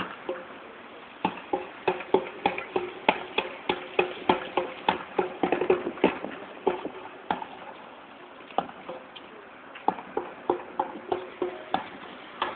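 Footsteps on hard ground at a walking pace, about two to three steps a second. They pause for a moment around the middle, then carry on.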